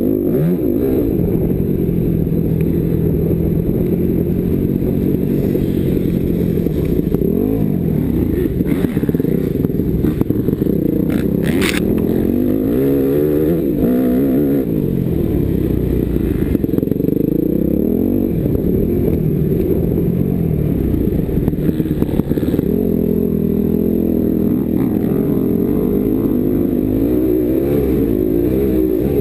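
250 cc motocross bike engine at full riding pace, revving up and dropping back again and again through the gears, with wind and rumble on a helmet-mounted microphone. A brief sharp clack near the middle.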